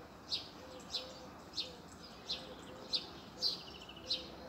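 A small bird chirping repeatedly outdoors, short high chirps at an even pace of about one and a half a second, about seven in all.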